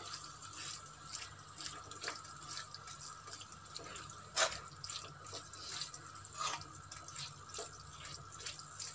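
Wooden spoon stirring mussels in a clay tajine: faint, irregular wet clicks and scrapes of shells and sauce, with one louder knock about four and a half seconds in.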